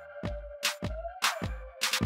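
Electronic intro music with a steady beat of sharp drum hits over a pulsing bass, and a synth tone that slides up and back down.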